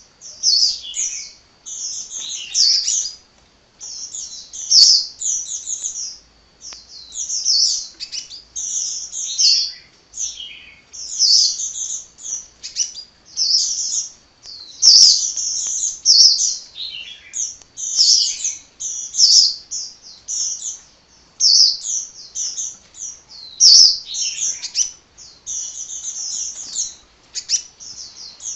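Sunbird singing without stopping: rapid, high-pitched twittering phrases, one after another with only short breaks.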